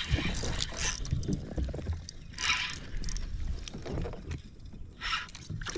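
Water sounds against a boat hull with irregular low bumps and knocks from handling aboard, and a couple of short hissing bursts, as a hooked fish is fought beside the boat.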